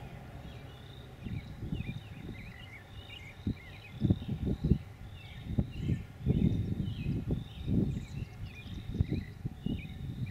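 Birds singing, one repeating a short high note over and over among scattered chirps, with irregular low rumbles of wind buffeting the microphone that grow louder about four seconds in.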